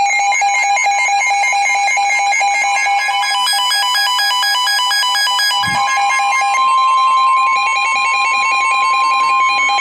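Electronic melody of rapidly stepping synthesized tones. About two-thirds of the way in it is joined by a steady, unbroken tone near 1 kHz: the NOAA Weather Radio 1050 Hz warning alarm tone that comes before a broadcast alert.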